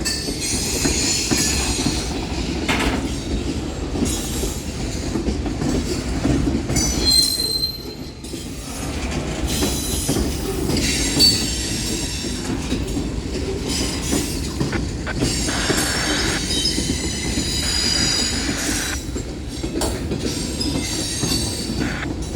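Union Pacific mixed freight train rolling past at close range, a steady rumble of the cars with wheels clacking over the rail joints. High-pitched metal squealing from the wheels comes and goes over it.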